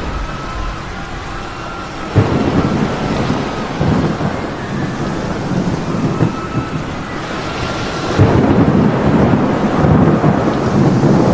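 Thunderstorm: steady heavy rain with thunder. A sudden crack of thunder about two seconds in rolls on as rumbling, and a second, louder bout of thunder starts near the end.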